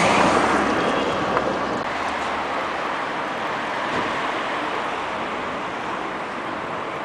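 City street noise: a steady hiss and rumble of traffic that slowly fades.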